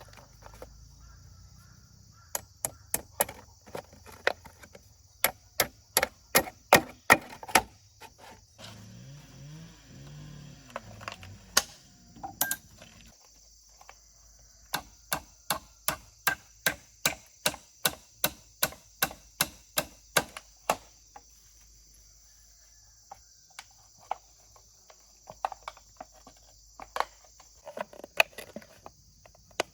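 A tool striking wood again and again, in runs of quick blows at about two to three a second, with short pauses between runs.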